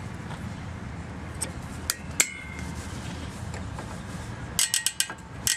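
Metal clinks as the spring clip on a disc brake caliper is pried off with a tool: one sharp ringing clink about two seconds in, then a quick flurry of clinks near the end. A steady low hum runs underneath.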